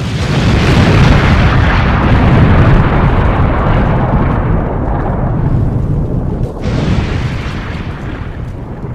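Loud, sustained explosion-like rumble that slowly fades, with a brighter hiss joining about two-thirds of the way through.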